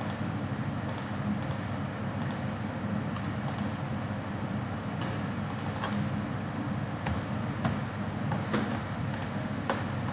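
Scattered, irregularly spaced computer mouse clicks, about a dozen, as faces are selected in CAD software, over a steady low hum of room or microphone noise.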